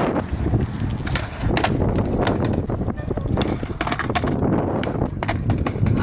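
Strong wind buffeting the microphone, with scattered sharp clacks of a skateboard's deck and wheels knocking on concrete flatground.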